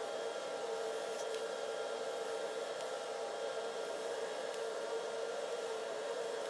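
Metal lathe running at a steady speed, an even motor whine with a strong single hum, while a taper is cut into the end of the spindle workpiece; a few faint ticks come through.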